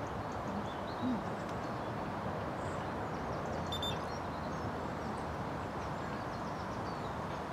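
Steady rushing outdoor background noise at the lakeside, with a faint short high chirp a little under four seconds in.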